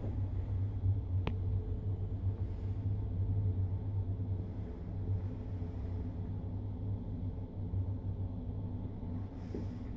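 Steady low hum, with one sharp click a little over a second in.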